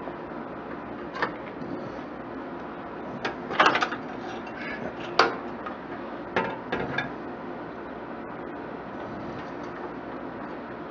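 A few sharp clicks and knocks of tools and parts being handled on a desktop computer's case, scattered through the first seven seconds, with a cluster of quick clacks about three and a half seconds in, over a steady background hiss.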